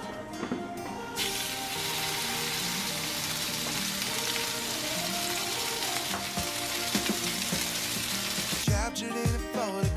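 Beef roast sizzling as it sears in a hot enameled cast-iron Dutch oven: a steady sizzle that starts about a second in and stops suddenly near the end, under background music with a beat.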